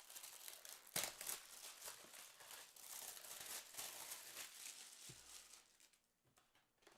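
Rustling of a trading-card pack wrapper being handled and torn open, with a sharp click about a second in and a soft low thump about five seconds in. It falls nearly quiet in the last second or so.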